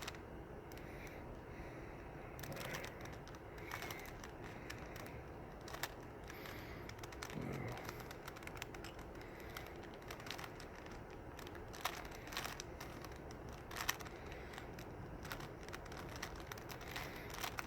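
Plastic Rubik's cube being twisted by hand: faint, irregular clicks and clacks as its layers turn.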